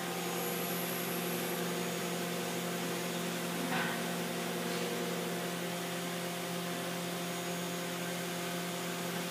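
Mazak Integrex i200ST multitasking CNC lathe running a machining cycle behind its closed doors: a steady hum with several held tones under an even hiss, with a faint tick about four seconds in.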